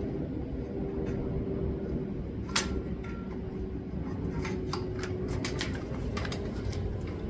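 Metal clinks and taps of tools and motorcycle front-brake parts being handled as the caliper is fitted over the disc: one sharp clink with a brief ring about two and a half seconds in, then a run of lighter clicks over the last few seconds, above a steady low hum.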